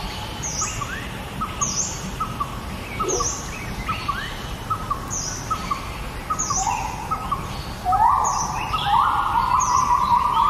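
Several birds chirping and calling, with repeated short high sweeping notes and lower whistled notes; louder, harsher calling begins about eight seconds in.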